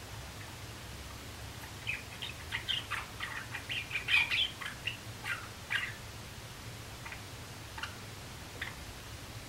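Young male Java sparrow practising its song: a quick run of short clicking chips and high notes for about four seconds, then a few scattered single chips.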